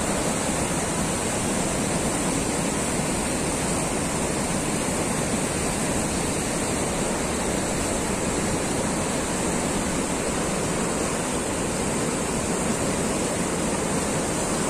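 Whitewater rushing through a concrete slalom canoe channel: the steady, unbroken noise of churning artificial rapids.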